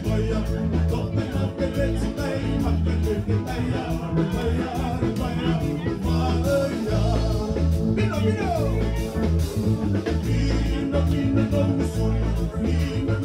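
Live band playing with a steady beat: a man singing into a microphone over electric guitar, bass and drums.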